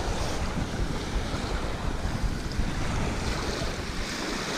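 Wind buffeting the microphone over small waves lapping on a pebble shore, a steady rushing noise with a low rumble.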